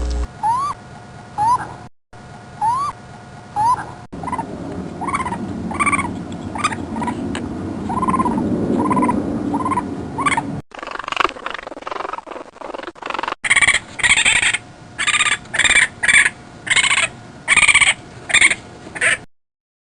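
A series of animal calls in several short clips joined by hard cuts: short rising calls repeated about once a second, then, after a cut, a run of louder, sharper calls spaced under a second apart.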